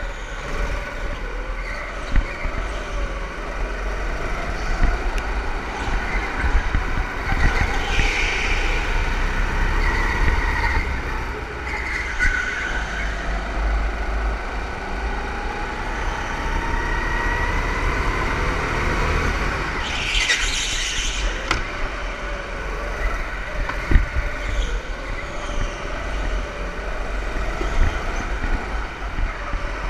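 Go-karts running on a track, their motors rising and falling in pitch as they speed up and slow down, several at once, over a steady low rumble. A brief louder hiss comes about eight seconds in and again about twenty seconds in.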